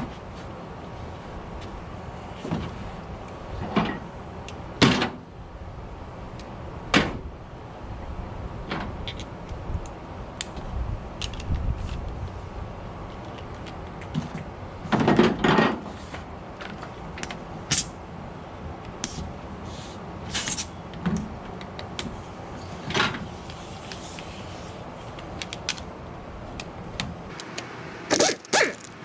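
Irregular clinks and knocks of metal hand tools and differential parts being handled, a cluster of louder knocks about halfway through and a few more near the end, over a steady low background noise.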